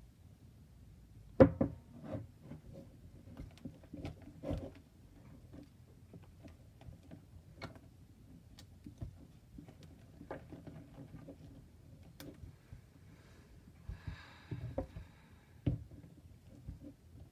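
A silicone spatula stirring thickening glue-and-borax slime in a mixing bowl, making irregular knocks and scrapes against the bowl. The sharpest knock comes about a second and a half in.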